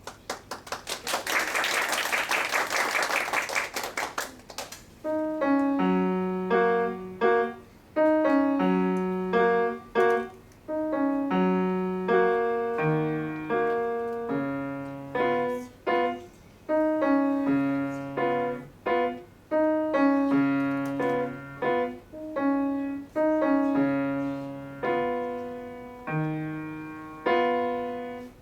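Audience applause for about the first four seconds, then a solo acoustic piano piece begins, with clear separate notes over a low bass note struck every second or two.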